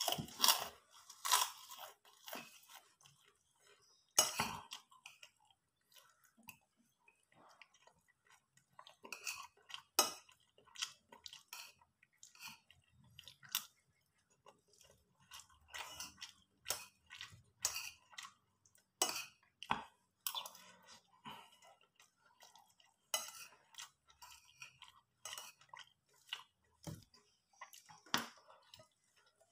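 A person chewing and crunching food with the mouth close to the microphone, while a metal spoon clinks and scrapes on a plate now and then.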